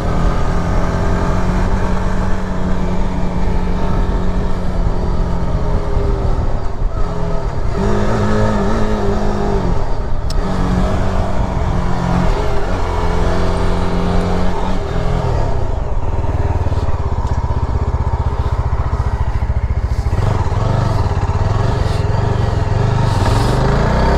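Motorcycle engine running while under way. Its pitch steps up and down several times as the revs change through the gears.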